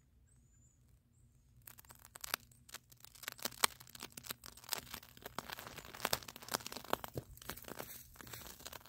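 Paper filter coated with thallium(I) azide burning. After a quiet start, a dense, irregular crackle of small pops and sizzle begins about two seconds in and keeps going.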